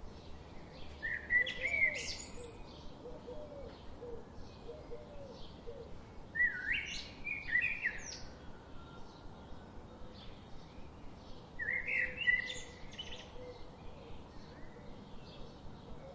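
Wild birdsong: one bird sings a loud, complex phrase of quick rising and falling notes three times, about five seconds apart, over faint continual chirping from other birds.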